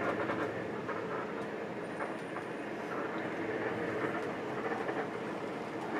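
Steady running noise inside a moving Mercedes-Benz 1526 coach: engine and road noise, with a few light rattles and clicks from the cabin.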